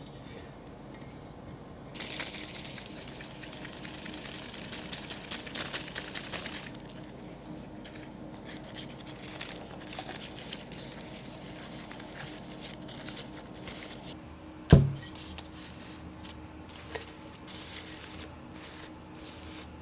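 Close handling of a rose bouquet: clear cellophane florist wrap crinkling and rustling for a few seconds, then soft rustles of stems and petals. About fifteen seconds in, a single loud, heavy thump with a short low ring as the glass vase of roses is set down on the wooden table.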